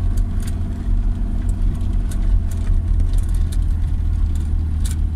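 1984 Tofaş Doğan car driving uphill: a steady low engine drone with scattered light clicks and rattles.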